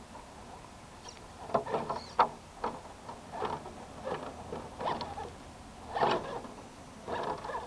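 Axial SCX10 RC rock crawler's small electric motor and geared drivetrain whining in short, irregular bursts as it inches up over rock, with its tyres scrabbling on the stone.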